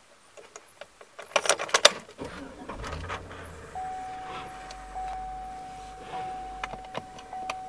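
Keys jangle in the ignition of a 2003 Chevrolet Tahoe, then its V8 engine starts and settles into a steady idle. A steady high tone comes in about four seconds in.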